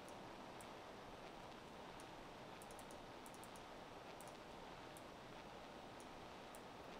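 Faint computer mouse clicks, scattered and sometimes in quick runs of two or three, over a steady low hiss.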